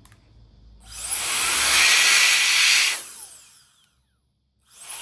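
Air blower blasting air into an opened laptop to clear out dust, with a hissing rush and a whine that rises in pitch. The first burst starts about a second in and fades away. A second burst starts near the end.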